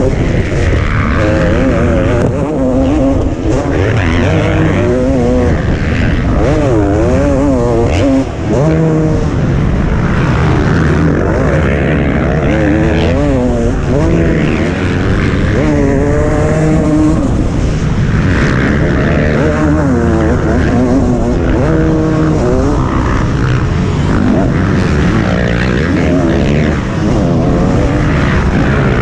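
Motocross motorcycle engine at race pace, heard close up from the rider's helmet, revving up and down over and over as the throttle opens and closes, with a short dip about eight seconds in.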